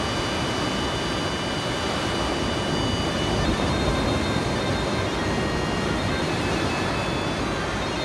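Surf breaking on a sandy shore: a steady, continuous rushing wash of waves. A thin, high tulum (bagpipe) melody runs faintly above it.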